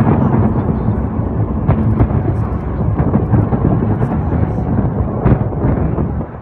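Distant fireworks barrage: many aerial shell bursts booming together into a continuous rumble, with a few sharper cracks standing out. The rumble drops away suddenly near the end.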